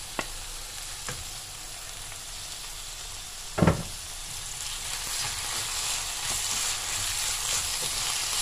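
Diced onion and small pieces of chicken breast sizzling in oil in a frying pan while being stirred with a wooden spoon; the sizzle grows louder in the second half. A single loud knock comes a little over three and a half seconds in.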